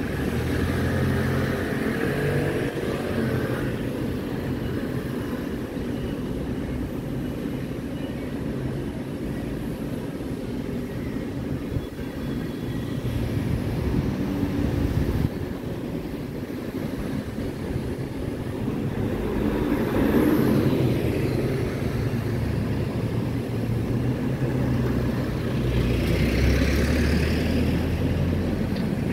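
A motor vehicle's engine running, a low hum that holds steady and then shifts in pitch in steps. It swells louder around the middle and again near the end.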